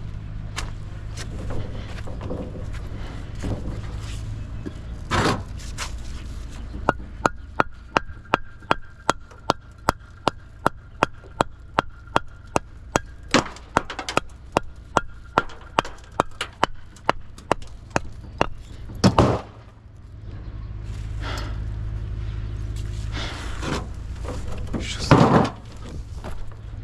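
Hammer blows on wood, a steady run of sharp knocks about two or three a second for some twelve seconds, over a constant low machine hum.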